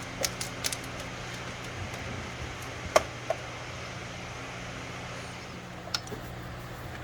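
A few sharp clicks and taps of hand tools and sockets on engine-bay metal parts during bolt removal, the loudest about three seconds in, over a steady low hum.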